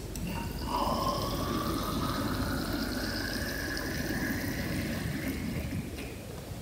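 Water poured from a plastic bottle into a narrow graduated cylinder, the pitch of the filling rising steadily as the cylinder fills.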